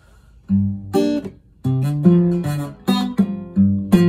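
Acoustic guitar played by hand: a run of plucked bass notes and chords that starts about half a second in, each ringing briefly before the next.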